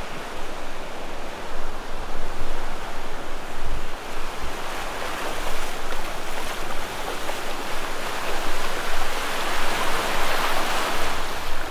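Surf breaking and washing up a sandy beach, a steady rushing wash that swells louder in the second half, with splashing as someone wades through the shallow surf.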